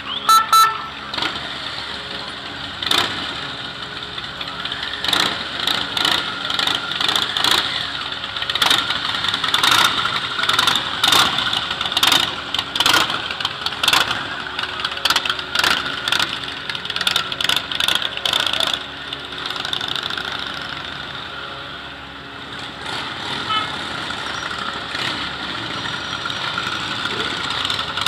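A line of motorcycles riding slowly past one after another, engines running and revving. Frequent sharp cracks stand out through most of it, thinning out near the end.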